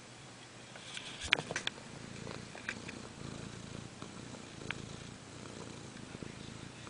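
A pet cat snoring with a low, continuous rumble. A few sharp clicks come about a second in, and single ones follow later.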